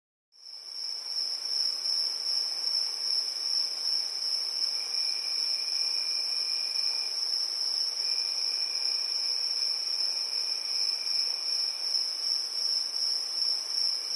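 Crickets trilling in one steady, unbroken high note, fading in from silence at the start. A fainter, lower insect trill joins about five seconds in, breaks off briefly, then resumes.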